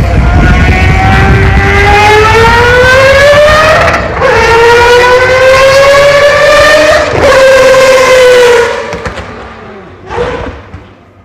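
Mazda 787B's four-rotor R26B rotary engine accelerating hard, its pitch climbing through two upshifts, about four and seven seconds in, then fading away.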